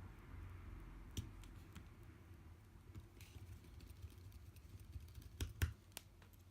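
Faint, scattered clicks and taps of small repair tools and parts on an iPad mini 2 being reassembled, the loudest pair about five and a half seconds in.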